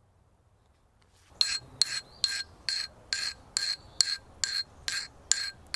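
A steel hand file drawn in quick, even strokes across the edge of a forged and heat-treated hex-bar steel chisel, about eleven strokes at roughly two a second starting about a second in. Each stroke scrapes with a metallic ring: a file test of the edge's hardness.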